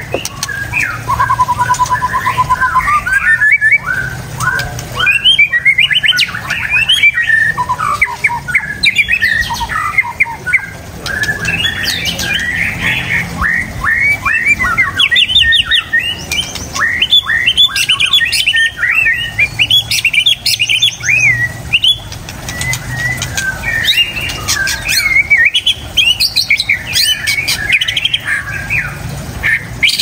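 White-rumped shama (murai batu) singing a long, varied song of quick whistled phrases and gliding notes, with a rapid trill about a second in and only brief pauses.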